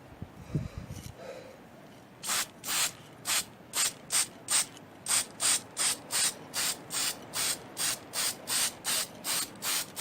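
A rattle-can (aerosol spray can) of undercoat fired in short hissing bursts, about three a second, starting about two seconds in. A low thump and some handling noise come in the first second.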